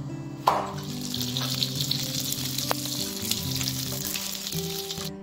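Huhu grubs sizzling as they fry in hot oil in a pan. The sizzle starts suddenly about half a second in and stops abruptly at the end, over background music.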